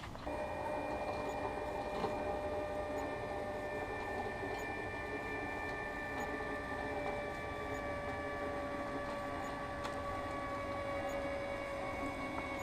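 Electric winch motor running steadily under load as it reels in cable, a whine whose pitch sags slowly downward.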